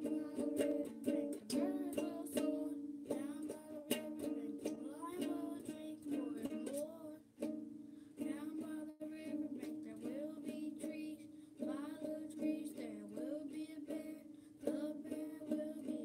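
Ukulele strummed in repeated chords, its strings ringing on, while a young voice sings along.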